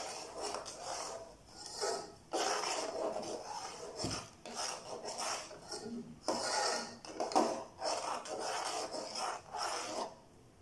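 Metal spoon stirring oats into hot milk, scraping round the bottom and sides of a metal saucepan in runs of strokes broken by brief pauses.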